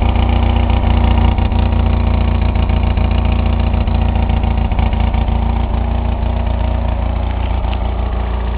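Honda portable generator's engine running steadily, a loud even hum with no change in speed.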